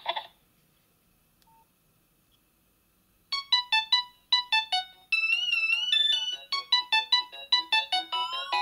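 Nokia 6280 mobile phone playing a polyphonic ringtone through its loudspeaker: a synthesized, electric-piano-like melody of short, quick notes that starts about three seconds in. It follows a near-silent pause with one faint short beep.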